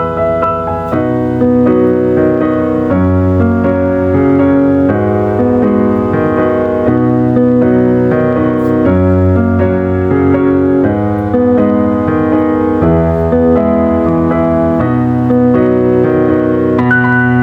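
Background instrumental music: keyboard playing sustained chords that change about once a second.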